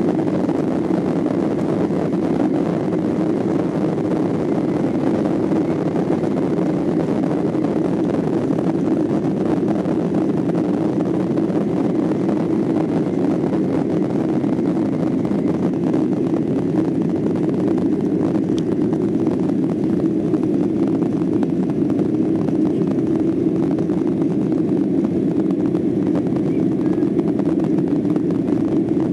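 Boeing 737-800's CFM56-7B turbofan engines at takeoff thrust, heard inside the cabin as a steady, even engine noise through the takeoff run and initial climb.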